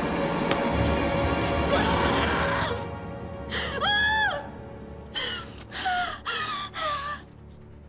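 Dramatic background music for about the first three seconds, then a woman's scream lasting under a second, followed by several shorter anguished cries and gasps as she is grabbed and held.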